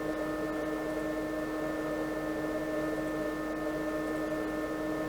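Steady electrical hum from the 6040 CNC router sitting powered up while idle, made up of several constant tones with no change in pitch or level.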